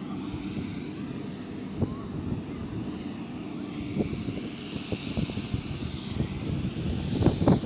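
Jet aircraft engine noise: a steady rumble with a wavering high whine, and a few knocks, the loudest near the end.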